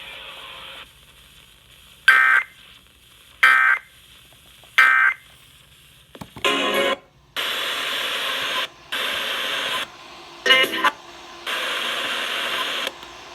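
Emergency Alert System end-of-message over radio: three short squawks of SAME digital data tones, about a second and a half apart, closing the test. From about seven seconds in, longer bursts of the same kind of data-tone squawk follow, separated by short gaps.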